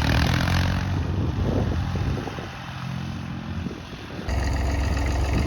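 Perkins P3 three-cylinder diesel engine of a Ford Ferguson tractor running. It drops quieter partway through and comes back loud abruptly about four seconds in.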